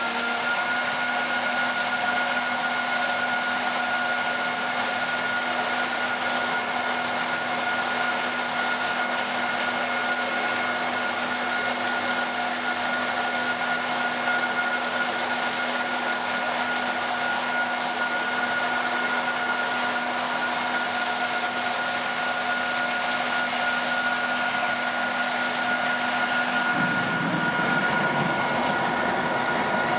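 3000-litre vacuum mixer homogenizer running: a steady motor whir with several constant whining tones over a rushing noise, as the anchor agitator and bottom rotor-stator homogenizer churn liquid in the tank.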